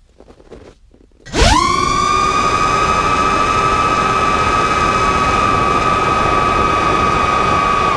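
250-size FPV quadcopter's brushless motors and propellers spinning up sharply about a second and a half in, then holding a loud, steady high whine over a rush of propeller wash as the quad climbs, heard from on board.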